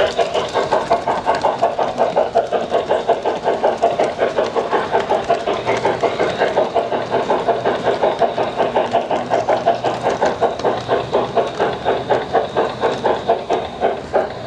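Model train running along its track, a steady mechanical clatter pulsing about four times a second.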